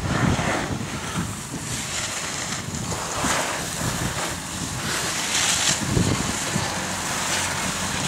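Wind buffeting the microphone of a rider going up a chairlift: a rough, steady rush with a low rumble and several gusts of louder hiss.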